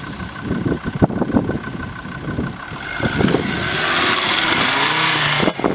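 Jeep Grand Cherokee engine running as the SUV crawls over rough sandy ground, with scattered thumps in the first half. From about three seconds in it revs up, rising in pitch under a growing rush of noise, and cuts off suddenly near the end.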